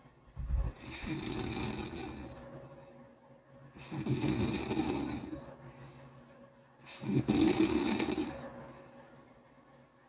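A person snoring: three loud, rattling snores about three seconds apart, each lasting a second or two.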